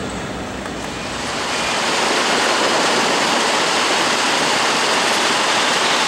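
Large shop fans blowing a strong breeze of about 14 mph: a steady rush of air that grows louder about a second in, then holds level.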